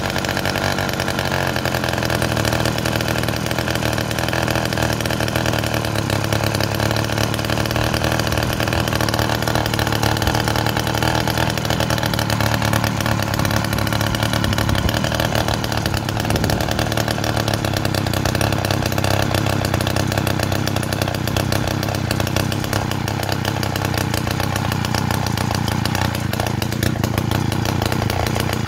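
49cc gasoline bicycle engine idling steadily while its idle speed screw is turned out to bring the idle down.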